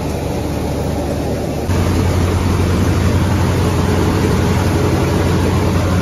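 Tractor engine driving a shaft-driven soybean thresher at work, a steady low drone with the rush of the threshing drum and fan. It gets louder about two seconds in.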